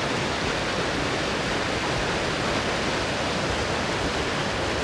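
Steady rushing of river water, an even hiss with no breaks or distinct events.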